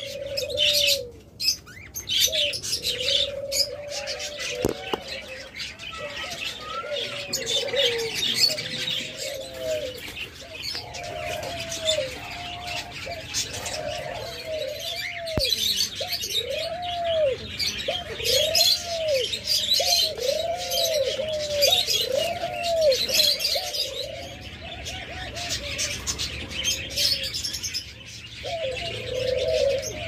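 Doves cooing, with a run of short arched notes about once a second through the middle, over constant high chirping and chattering of caged budgerigars and lovebirds.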